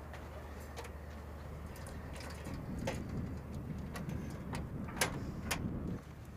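Handling of sheet-metal boxes of a water-condensing unit: a handful of sharp clicks and knocks as the boxes are moved and adjusted, over a low steady hum and some rustling.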